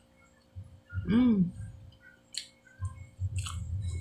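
A person eating a mouthful of cake: a short hummed "mmm" about a second in, then chewing with a run of soft wet mouth clicks and smacks.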